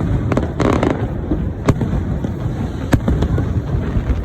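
Aerial fireworks bursting: about five sharp bangs spread over a few seconds, with a brief crackle just under a second in, over a continuous low rumble of distant booms.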